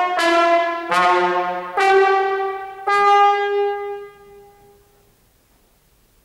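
Solo trombone playing four separate notes with sharp attacks. The last note is held for about a second and then dies away in the hall's reverberation about four to five seconds in.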